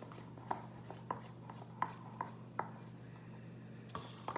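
A spoon or stirrer tapping and clicking irregularly against a bowl, about seven light taps, while a slime mixture is stirred, over a steady low hum.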